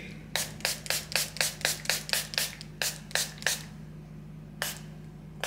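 A person's hands clapping sharply in a quick run, about four or five claps a second for some three seconds, then a pause and one more clap about a second before the end.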